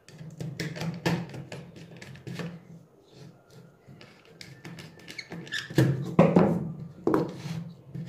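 Plastic clicks, taps and scrapes of electrical contactors and wires being handled and fitted together on a table, with a few louder knocks about six and seven seconds in, over a steady low hum.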